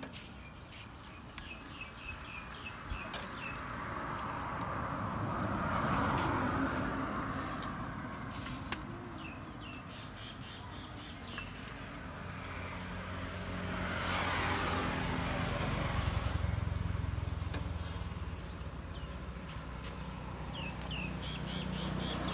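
Road traffic passing: two vehicles swell up and fade away, the second with a low engine drone that carries on through the second half. Small birds chirp in short series over it.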